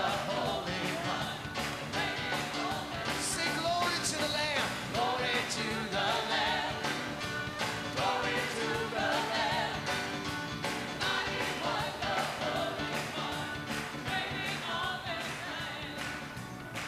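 Live worship music: a band with keyboard plays sustained chords under a steady beat while voices sing a slow melody over it.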